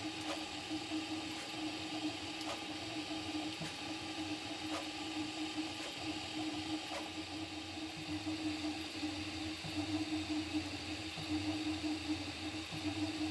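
Prusa MK4 3D printer running a print at 60 mm/s: a steady mechanical hum from its motors and fans, with faint regular ticks about once a second.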